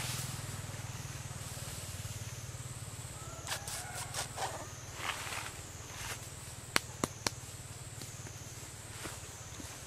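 Outdoor treetop ambience: a steady high wavering drone over a low hum, with some rustling a few seconds in and three short sharp clicks in quick succession about seven seconds in.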